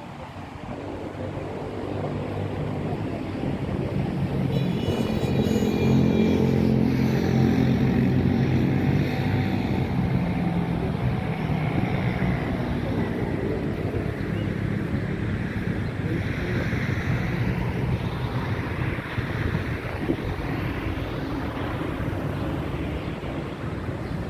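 Wind buffeting the microphone over surf on a rough sea, with an engine running close by, loudest for several seconds about a quarter of the way in.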